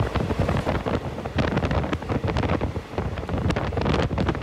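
A moving train heard from on board: a steady rumble with irregular clicks and rattles, with wind buffeting the microphone.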